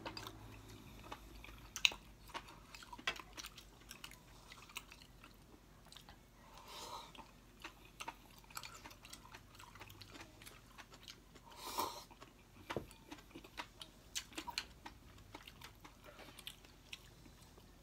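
Close-up eating sounds of two people eating Korean-style instant noodles, rice cakes and kimchi: quiet chewing and mouth sounds with scattered small clicks of wooden chopsticks on bowls.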